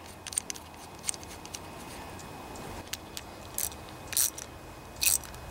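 Small metal clicks and a few short scraping sounds of a driver turning the float bowl bolt on a Honda lawnmower carburetor, snugging it down.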